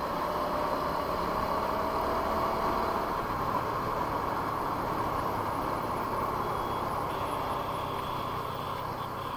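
TVS Apache RTR 200 4V motorcycle ridden along a highway at about 55–60 km/h: steady wind rush and road noise mixed with the engine and passing traffic.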